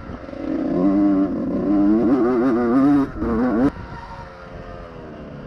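Honda CR125R two-stroke single-cylinder motocross engine revving hard under throttle, its pitch rising and falling, then the throttle shut off abruptly about three and a half seconds in, dropping to a quieter, lower run.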